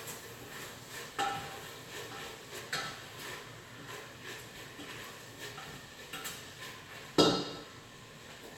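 Kitchen pots and utensils clinking and knocking during cooking, a few scattered hits with the loudest knock near the end, over a steady background hiss.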